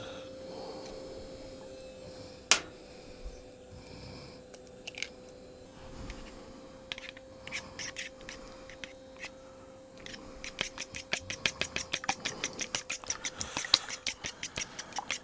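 Rapid, even clicking in food preparation, about five or six clicks a second, starting about ten seconds in and growing louder. Before it there is a single sharp click and a faint steady hum.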